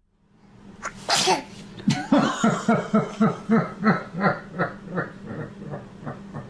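A baby's short sneeze about a second in, followed by a run of rhythmic laughter, about four laughs a second, slowing and fading toward the end.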